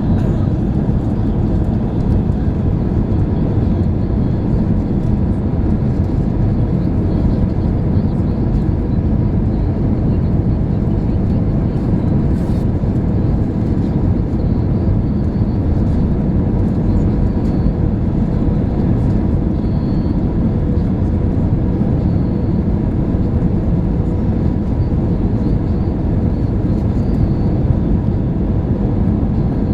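Airbus A320 cabin noise in flight: a steady, deep rush of jet engines and airflow heard from inside the cabin, with a faint constant hum.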